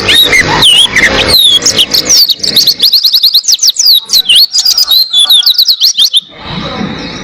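White-eye (pleci) singing a rapid, high twittering song: quick runs of sweeping notes, densest in the middle, that stop about six seconds in and leave a steady background hiss with a thin high tone.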